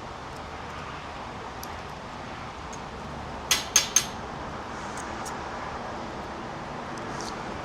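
Three quick, sharp clinks of hard objects, about a quarter-second apart, a few seconds in, over a steady background hiss.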